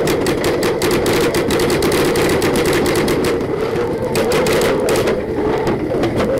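Paintball marker firing rapidly and close up, many shots a second in long strings, thinning out about five seconds in.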